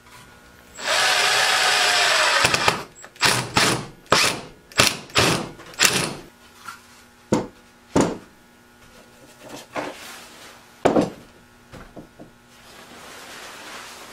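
A small power tool runs steadily for about two seconds, followed by a string of sharp knocks and rubbing as the wooden stool is handled on the workbench.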